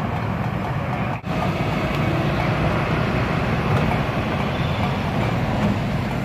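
Excavator's diesel engine running with a steady rumble, briefly cut off about a second in.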